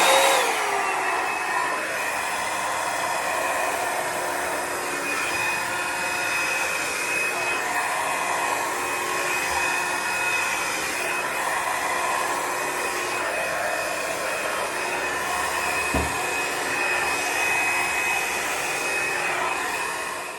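Revlon One-Step hot-air brush hair dryer running steadily, a rush of blown air with a high motor whine, as it dries natural hair. The pitch settles just after it starts, and there is a single light knock near the end.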